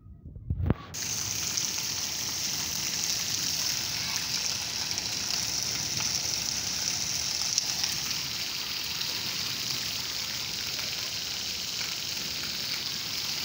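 Heavy rain: a steady hiss of rain falling and rainwater running, which sets in abruptly about a second in after a few low thumps on the microphone.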